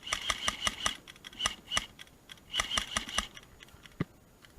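Airsoft gun firing rapid shots in three quick bursts, sharp clacks close together. A single knock follows about four seconds in.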